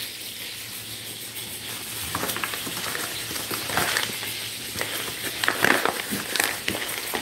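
Hot oil frying in a skillet, a steady sizzle, with rustling and light knocks from about two seconds in as a paper flour bag is picked up and handled.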